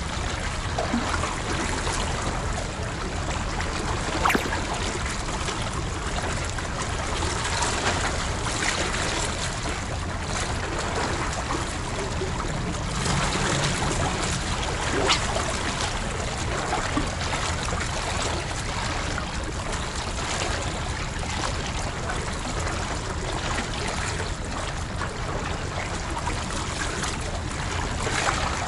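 Seawater washing and sloshing among concrete tetrapod breakwater blocks as a steady wash, with a few brief sharper splashes.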